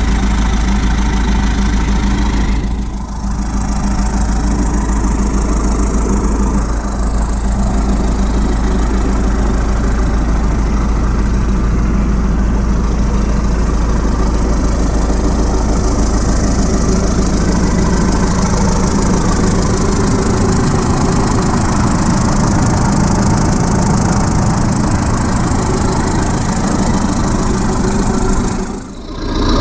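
Caterpillar D7 3T crawler dozer's four-cylinder diesel engine idling steadily, freshly brought back to life after six years of sitting, with two brief dips in level, about three seconds in and near the end.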